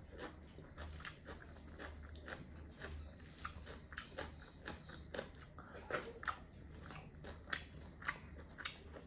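A person chewing chicken curry close to the microphone: irregular wet mouth clicks and smacks, one to three a second, over a low steady hum.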